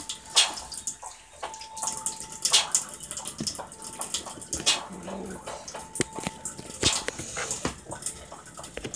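Scattered sharp clinks and knocks of dishes and utensils handled at a kitchen sink, with a faint steady high hum coming and going.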